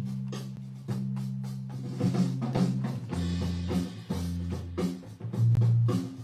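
Rock music: held low guitar chords that change about every second, with a drum kit hitting along.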